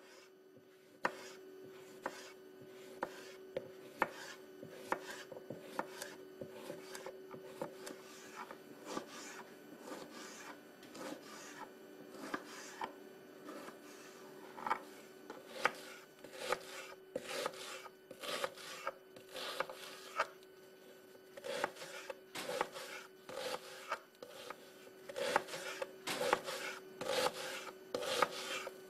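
Kitchen knife slicing vegetables on a cutting board: evenly spaced cuts about once a second at first, then quicker, louder runs of chopping in the second half. A faint steady hum lies underneath.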